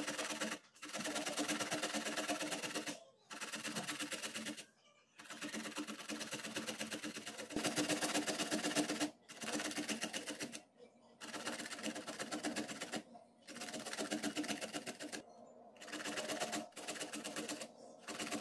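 Cauliflower florets being grated on the medium side of a box grater: quick rasping strokes in runs of one to two seconds, with short pauses between runs.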